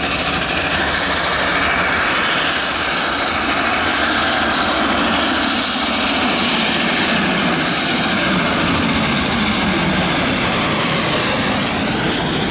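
LNER A4 three-cylinder Pacific steam locomotive 60019 Bittern working hard at speed with its train, a loud continuous rush of exhaust and running noise as it approaches and passes close by.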